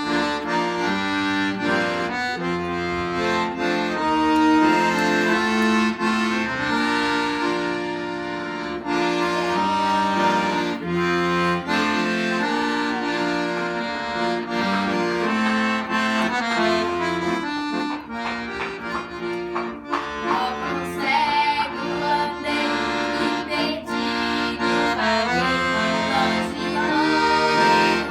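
Accordion (sanfona) playing a worship tune: a melody over sustained chords, with a steady bass accompaniment underneath.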